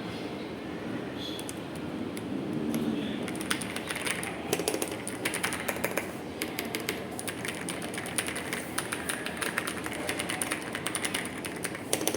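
Typing on an MCHOSE K99 gasket-mount 98% mechanical keyboard: quick keystroke clicks, a few scattered ones at first, then a dense steady run from about three seconds in, over a low steady background noise.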